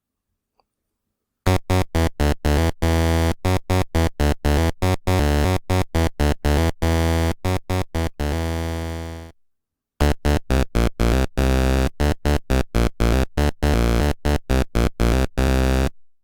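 Electronic keyboard music of quick, short repeated notes. It starts after about a second and a half and plays in two phrases, with a brief stop about nine seconds in.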